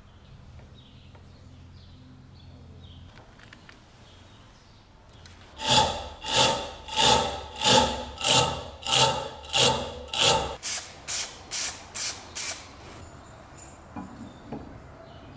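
A hand tool rubbed against part of an antique bread cutter in regular back-and-forth strokes, about two a second: about a dozen strokes starting some six seconds in, the last few shorter and quicker, stopping about three seconds before the end.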